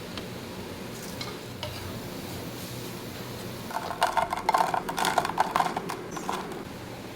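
Rice pakoras frying in hot oil. About halfway in, a few seconds of sizzling with a spoon stirring and scraping in the pan, over a steady low hum.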